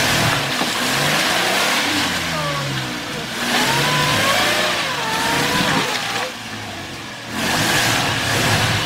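Off-road 4x4's engine revving in repeated surges under load as it works through deep mud, easing off for about a second a little past six seconds before revving up again.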